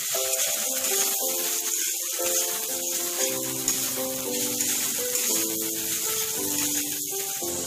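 Instrumental background music playing a stepping melody over the steady sizzle of chopped tomatoes frying in mustard oil in a kadai.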